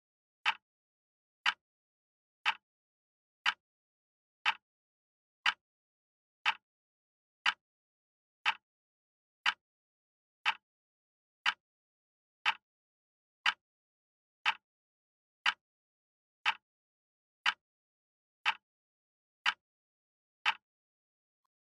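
Countdown timer sound effect ticking once a second: about twenty short, sharp ticks with silence between them, stopping about a second before the end.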